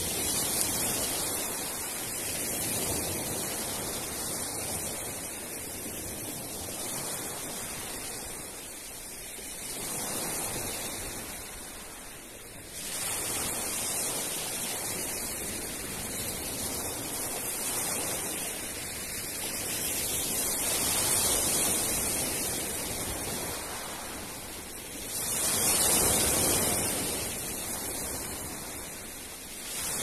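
Small sea waves breaking and washing back over a pebble beach, a steady hiss of surf that swells and eases every few seconds, loudest near the end.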